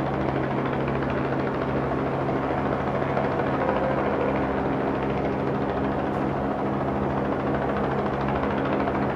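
Steady low drone of a large engine running without change, a hum of several steady low tones over a rushing wash.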